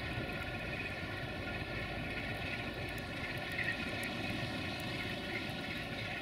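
Electroputere 060-DA (LDE2100) diesel-electric locomotive's Sulzer 12-cylinder diesel engine running steadily as the locomotive creeps along while shunting, with the high whistling note that gives the class its nickname "Fluieroasa" (the whistler).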